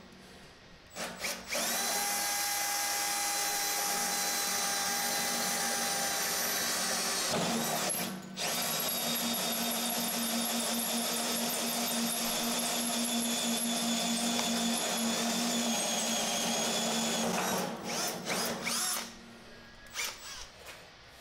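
Power drill turning a Milwaukee Hole Dozer bi-metal hole saw through stainless steel sheet, running steadily for about six seconds. It stops briefly, then cuts for about nine seconds more, ending in a few short bursts as the hole is finished.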